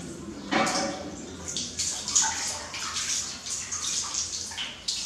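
Water splashing and sloshing in a large metal basin as a baby monkey swims and paddles about in it, in irregular splashes, loudest about half a second in and again around two seconds in.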